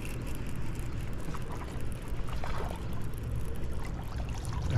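A small spotted bass splashing at the water's surface as it is reeled in to the bank, over a steady low hum.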